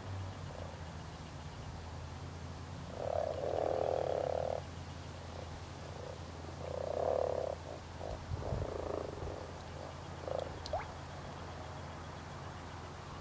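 European common frogs (Rana temporaria) croaking: a croak of about a second and a half around three seconds in, another near seven seconds, then several shorter croaks, over a steady low hum.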